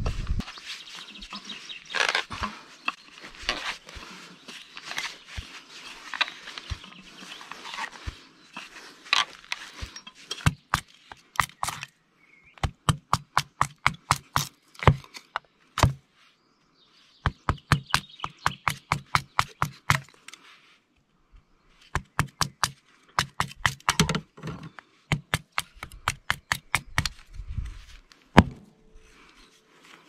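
Runs of sharp knocks or taps, several a second, with short pauses between the runs. For the first third they sit over a dense crackling hiss.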